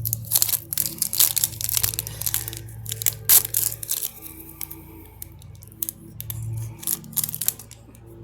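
A 2022-23 Upper Deck MVP hockey card pack's wrapper being torn open and crinkled, dense sharp crackles for the first three seconds or so, then quieter rustling and card handling.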